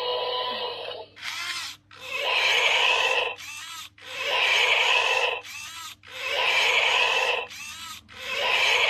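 Primal Hatch Jurassic World T-Rex toy's electronic dinosaur sound effect from its speaker, repeating: a short call then a louder, longer roar, about every two seconds, four times over.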